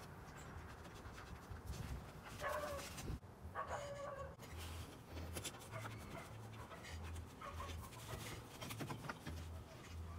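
A dog panting, with a few short whines, and light clicks as plastic engine-bay trim is handled.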